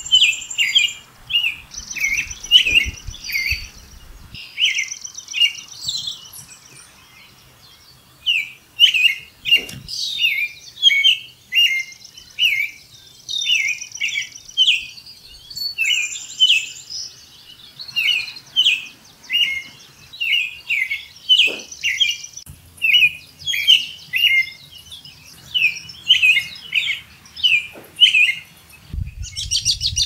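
American robin singing: quick phrases of a few short whistled notes each, repeated over and over, with thin high squeaky notes between them. The song pauses for a few seconds shortly after it starts, then runs on almost without a break until just before the end.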